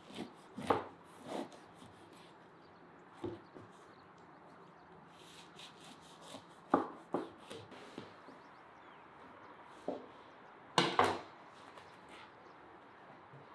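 Knife cutting through a crusty loaf of bread on a plastic cutting board: a series of separate short crunches as the crust gives way, loudest a little past halfway and near the end.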